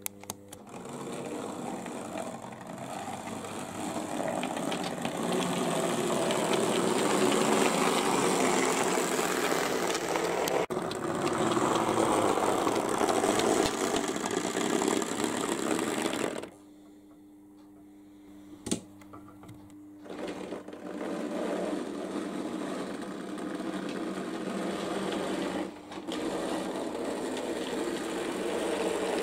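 Model railway train running: the locomotive's small electric motor whirring, with the wheels rattling over the rails. About halfway through the sound drops away for a few seconds, leaving a faint steady hum and one sharp click, then the running resumes.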